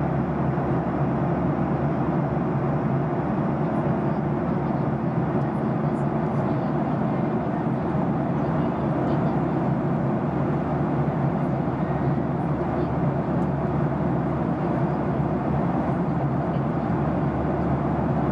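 Steady cabin noise of a jet airliner in cruise flight: an even rush of engine and airflow noise, strongest in the low range, with no change in level.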